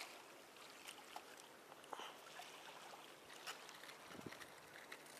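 Near silence: a faint steady hiss of wind and water, with a few faint scattered clicks.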